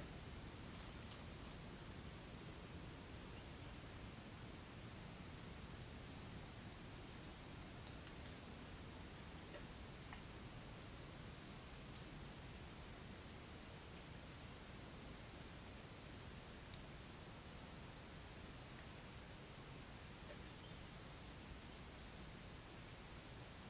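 Small birds chirping: short high-pitched notes repeating irregularly, about one or two a second, over a faint steady background hiss.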